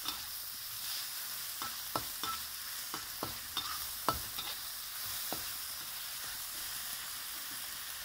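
Pork and garlic sizzling in hot oil in a black wok, with a metal spatula scraping and clinking against the pan as the meat is stirred. The clinks stop a little past halfway and the steady sizzle carries on.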